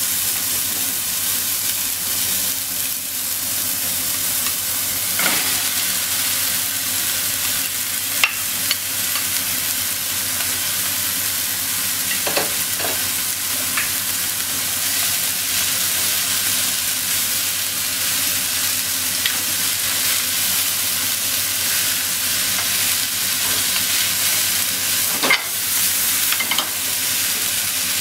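Corn, onion and ground meat frying in a pan with a steady sizzle, with a few sharp knocks here and there. Cooked rice is added partway through and is being stirred in with chopsticks near the end.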